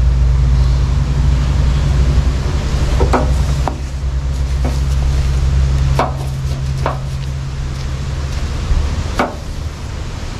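A steady low motor drone that fades away about six to eight seconds in, with half a dozen short sharp taps and knocks scattered through it.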